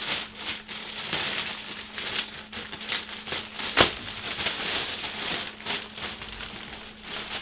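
Rustling and crinkling of an Arri Unit Bag II Large camera bag and its wrapping being handled during unpacking, in irregular bursts with one sharper click about four seconds in.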